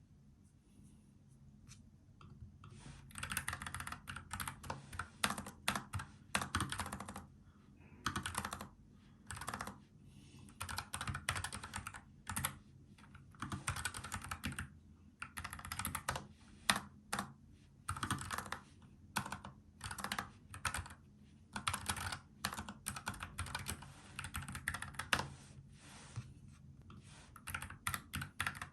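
Typing on a NuPhy Air75 low-profile mechanical keyboard with tactile brown switches: rapid key clacks in bursts of a second or two, broken by short pauses, starting about three seconds in.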